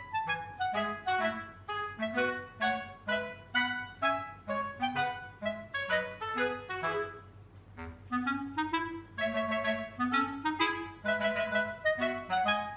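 Background music: a light tune of short, evenly paced notes.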